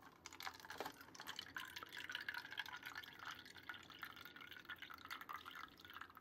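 Faint trickle of liquid from the spout of a toy drink fountain dispenser, running as a thin stream into a paper cup with many small ticking splashes. It starts a fraction of a second in.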